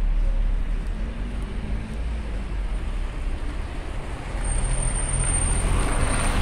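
City street traffic: motor vehicle engines running with a low rumble, and a vehicle passing close, growing louder in the second half with a thin high whine over it.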